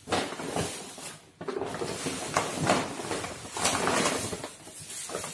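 Plastic shopping and produce bags rustling and crinkling as hands rummage in a tote bag and pull groceries out, with a brief lull about a second and a half in.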